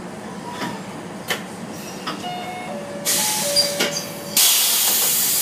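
A standing railcar's air system venting compressed air: a few faint clicks and short tones, then a hiss about three seconds in, and a louder, steady hiss from about four and a half seconds in.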